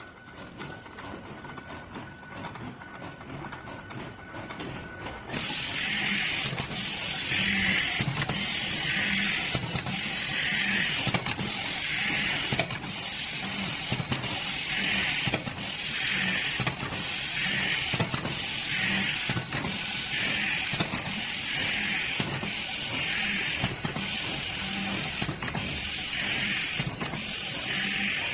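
Dual-head automatic desktop screw-driving machine with air-blown screw feeding, running its cycle. About five seconds in a steady air hiss starts. Over it come short pulses of blown air with a low knock and clicks, about once every second to second and a half, one per screw driven.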